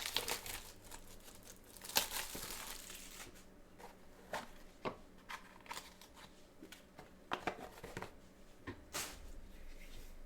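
Cellophane shrink-wrap on a small trading-card box crinkling and tearing as it is unwrapped, with scattered sharp clicks and rustles of handling.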